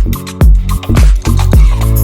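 Background music with a steady beat of about two heavy bass thumps a second.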